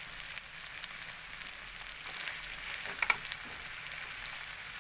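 Pork, potatoes and peas sizzling in sauce in a hot metal wok, a steady hiss with fine crackling pops. A brief sharp knock stands out about three seconds in.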